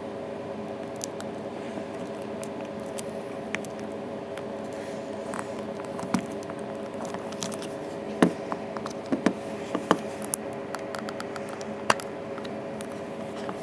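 Scattered light clicks and taps of small tools and parts being handled on an iPhone 3GS being opened up, with a sharper click about eight seconds in and a quick run of clicks over the next few seconds, over a steady background hum.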